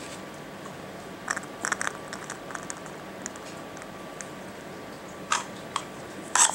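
Small dog treats dropped by hand into one hard plastic half of an IQ Treat Ball: scattered light clicks and taps, with a louder clack near the end.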